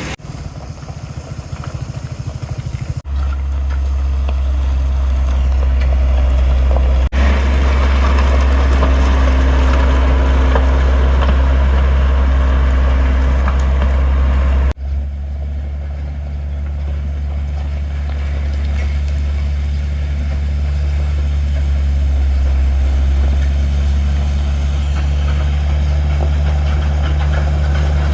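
Heavy construction machinery engines running with a strong low hum, a rapid pulsing in the first few seconds; the sound breaks off and changes abruptly three times.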